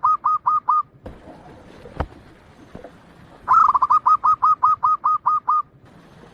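Zebra dove (perkutut, Bangkok type) singing: the last evenly spaced coos of one song in the first second, then about halfway through a full song, a quick rising run followed by a string of clipped coos at about five a second. A single sharp click about two seconds in.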